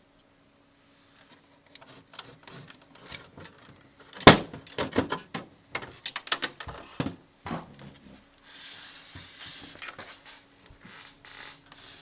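Handling noise from a vintage cassette boombox being taken apart: irregular plastic clicks and knocks, with one sharp knock about four seconds in. A run of rapid clicks follows, then a second or so of hissy rubbing noise. A faint steady hum sits underneath.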